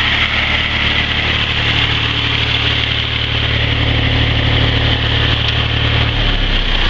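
Old Massey Ferguson tractor engine running steadily, driving a PTO-powered cordwood saw through its driveshaft. The engine's low note drops about six seconds in.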